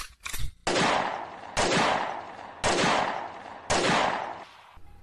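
Four loud gunshots about a second apart, each sudden and ringing out for most of a second, after a few quick clicks at the start.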